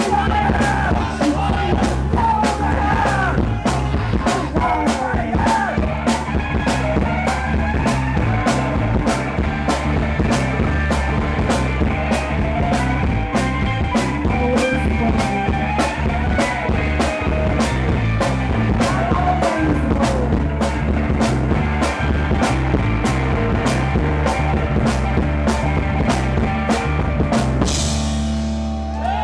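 Punk rock band playing live: electric guitars, bass and drums with a steady, driving beat. The drumbeat stops about a second before the end as the song finishes.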